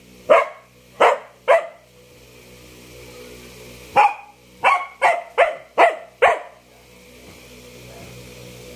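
A dog barking in short sharp barks, three in the first second and a half, then a run of six about four seconds in. This is the dog's demand barking for food.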